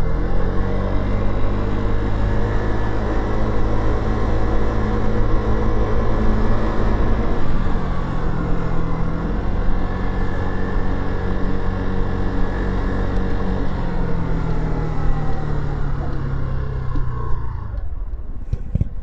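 Motorcycle engine heard from the bike itself, pulling away with rising pitch just after the start and running steadily. It eases briefly around the middle and picks up again, then drops off as the bike slows near the end.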